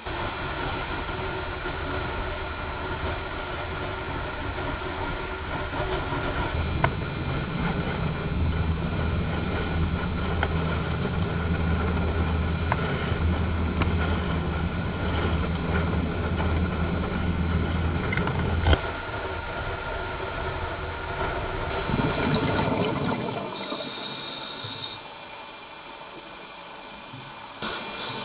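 Steady engine rumble with hiss and a low hum, which cuts off abruptly about two-thirds of the way through; quieter sound follows, with a brief high tone near the end.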